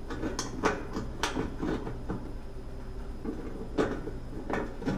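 A screw being worked into a washing machine lid hinge: scattered metal clicks and scrapes over a steady low hum.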